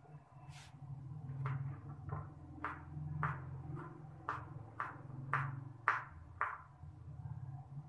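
A knife cutting through onions: about a dozen sharp chopping strokes, roughly two a second, over a steady low hum.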